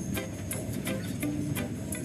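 Background music: short held notes over a light, regular clicking rhythm.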